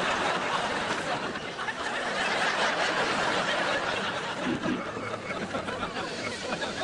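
Many people laughing together, the laughter slowly dying down.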